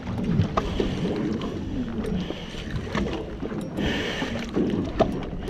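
Wind and sea water washing around a small boat while a spinning reel is cranked to bring a hooked kingfish up on a jigging rod, with small clicks and a short burst of hiss about four seconds in.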